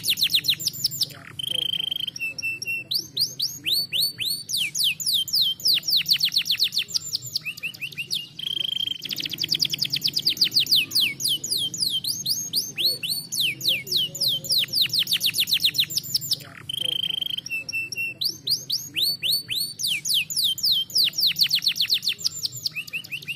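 Domestic canary singing a continuous song of rapid trills, each a quick run of descending sweeps. About every seven to eight seconds the trills break for a short held whistled note.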